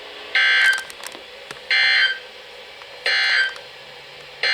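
Emergency Alert System (SAME) digital data tones: three short, harsh, warbling bursts about a second and a half apart, the end-of-message code sent after the spoken warning. Steady radio hiss between the bursts.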